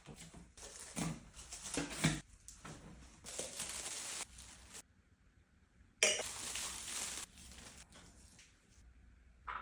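Packaging rustling as items are unboxed and handled, with a few light knocks and clinks. The rustling stops for about a second near the middle, then comes back in one short burst.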